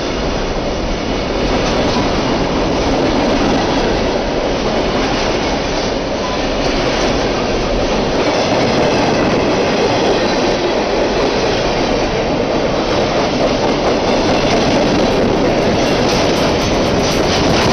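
Freight train of covered hoppers and tank cars rolling past at close range: a steady, loud noise of steel wheels running over the rails.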